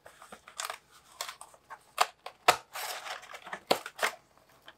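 Cardboard box being handled and opened: a run of scrapes, rustles and sharp knocks, loudest about two to two and a half seconds in and again near four seconds.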